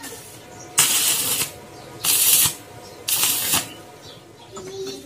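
Arc welding on a steel square-tube frame: three short tack welds of hissing crackle, each about half a second long and about a second apart.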